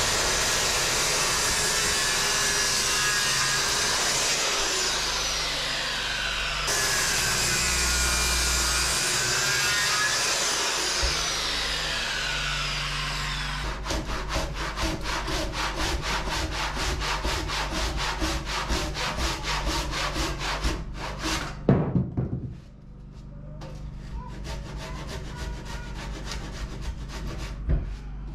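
A circular saw cutting through a thick timber for about the first half, its whine dipping and rising as the blade loads up. Then a handsaw finishes the cut in quick, even back-and-forth strokes, with a sharp knock about two-thirds of the way through and fainter strokes after.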